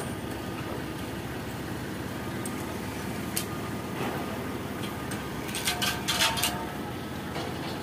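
Steady low rumble of a car's engine and road noise heard from inside the car, with a few sharp clanks, one about three and a half seconds in and a quick cluster near the end.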